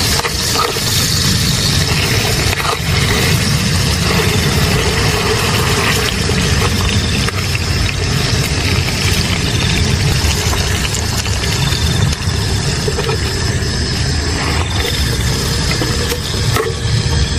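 Canister gas stove burner running with a steady low rumble under chicken frying and sizzling in oil in a small aluminium pot, with a few light clicks of metal tongs and fork against the pot.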